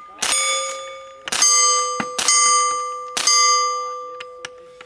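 A piece of metal is struck four times, about a second apart. After each strike it rings at the same clear pitches with many overtones and slowly fades.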